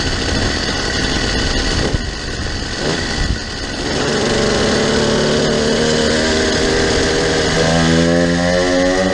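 Engines of a twin-engine motorized bicycle running while it is ridden, with wind noise. The engine note steadies about halfway through and shifts up a step near the end.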